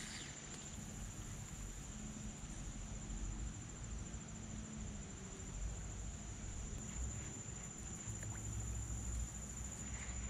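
Steady, high-pitched, unbroken chorus of insects in the reeds, over a low rumble.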